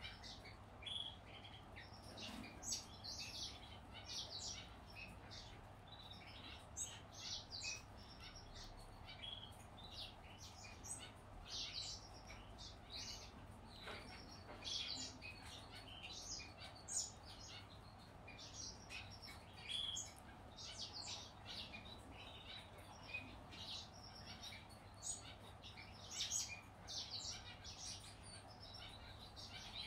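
Yellow-back Gouldian finch nestlings begging: a continual run of short, high chirps, several a second, with no pause.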